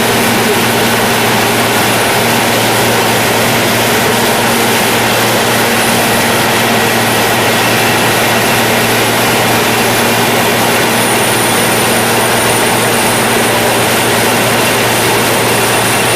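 Caterpillar PM102 cold planer running, a steady loud machine noise with a faint high whine.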